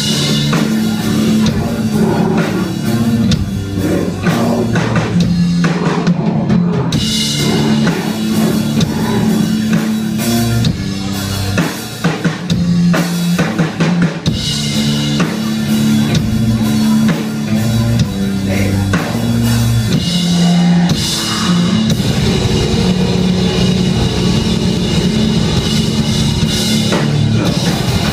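Death metal band playing live: a drum kit with bass drum and cymbals under distorted electric guitars and bass riffing, with a brief break about twelve seconds in.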